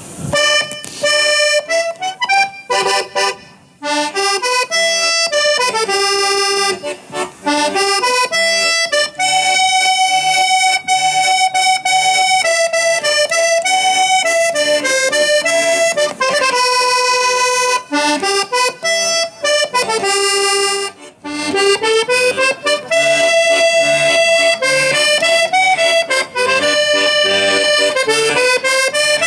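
Organetto, a small Italian diatonic button accordion, played solo: a lively folk melody over regular bass notes, with short breaks about four seconds in and again around twenty-one seconds.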